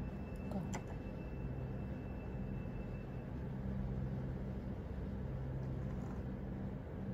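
A low, steady hum and rumble over a hiss, with a couple of faint clicks under a second in and a faint high tone that stops about three seconds in.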